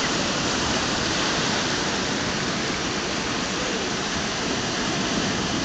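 Shallow seawater washing over sand and around black volcanic rocks at the water's edge: a steady rushing noise.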